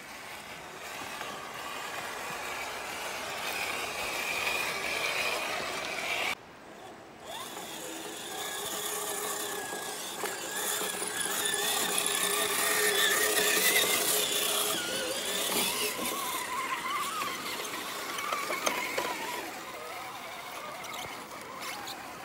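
High-pitched whine of RC crawlers' electric motors and geared drivetrains, the pitch rising and falling with the throttle. The sound breaks off briefly about six seconds in, then returns louder.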